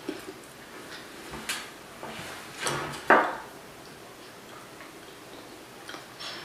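Chewing a fried chicken sandwich: a few scattered soft crunches and mouth clicks, the loudest about three seconds in.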